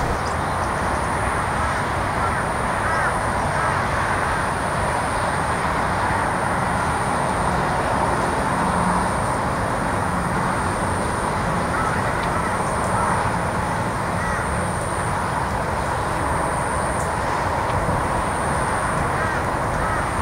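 Steady roar of distant road traffic, with a few faint short bird calls now and then.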